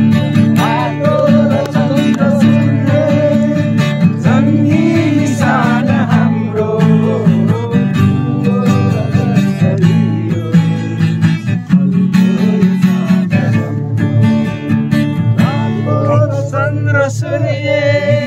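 Acoustic guitar strummed steadily as accompaniment, with a voice carrying a wavering melody over it.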